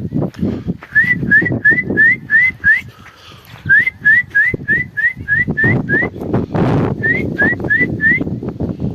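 A person whistling through the lips to call horses in: short rising whistle notes, about three a second, in three runs with brief pauses between them.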